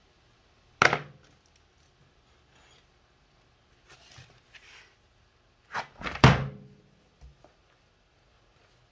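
Metal clutch parts of a Honda Goldwing GL1200 being handled on a workbench: a sharp metallic clink about a second in, light rubbing and handling around four seconds, then two clanks around six seconds, the second the loudest with a short ring, and a small thump after.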